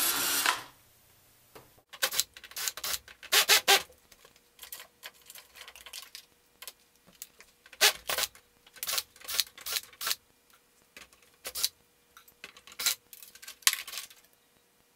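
Irregular metallic clicks, knocks and rattles from the steel case of an old Dell desktop computer being taken apart with a cordless drill-driver, as screws and internal parts are loosened and handled.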